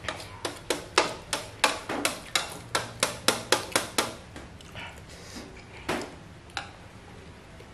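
Wooden chopsticks tapping and clicking against a stainless steel tray while picking up noodles: a quick run of sharp taps, about four a second, for some four seconds, then a few scattered knocks.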